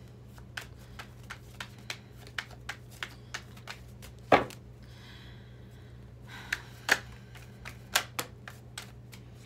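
A deck of tarot cards being shuffled by hand: a run of light card clicks about three a second, then scattered louder snaps, the loudest about four seconds in.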